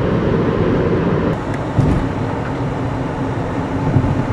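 Steady road and engine noise inside a moving Jeep's cabin, mostly a low rumble that thins a little about a second and a half in.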